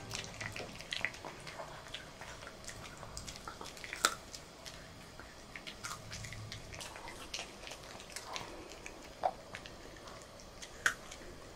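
Maltese dog chewing a treat: scattered soft crunching and clicking of teeth, with a few sharper clicks about 4, 9 and 11 seconds in.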